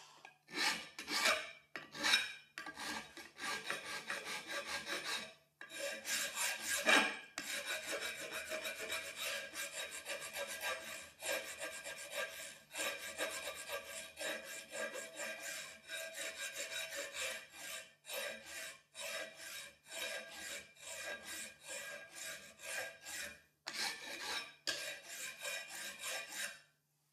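Hand file rasping back and forth across the edge of a metal plate clamped in a bench vise, about two to three strokes a second with a couple of short pauses. The file is dressing the root face of a butt-joint plate after grinding.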